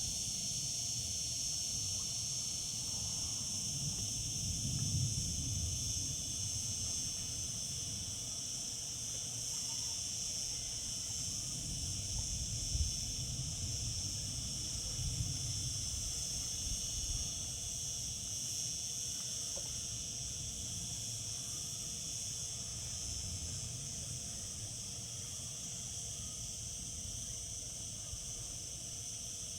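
Cicadas singing in a steady, unbroken high-pitched drone, with a low uneven rumble underneath.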